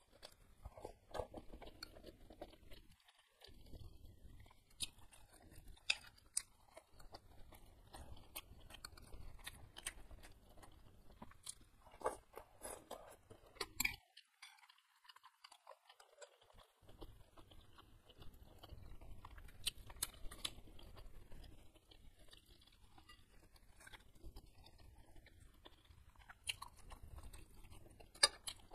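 Close-up chewing of a mouthful of beef meatball and noodles, wet mouth sounds, with short sharp clicks of a metal spoon and fork against the bowl. A quieter pause comes about halfway through.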